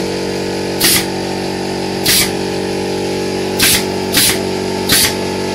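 Pneumatic nail gun firing into the wooden bed of a miniature truck: five short sharp shots, each with a burst of air, at uneven intervals. A steady motor hum runs under them.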